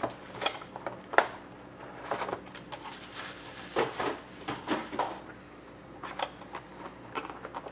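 Hockey card boxes and their wrapping being handled and opened: irregular crinkling, rustling and small sharp clicks of plastic and cardboard.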